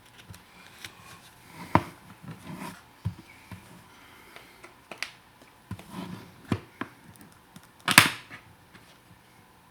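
Hard plastic of a car sun visor's inner shell clicking and creaking as a knife blade pries at it, a few scattered clicks, with one louder sharp snap near the end.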